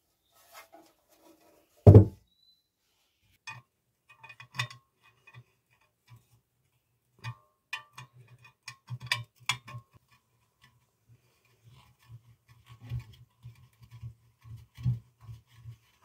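Small metallic clicks and taps of painted sheet-metal gumball-machine parts and a small spanner being handled and worked on a wooden workbench, with one heavy thump about two seconds in.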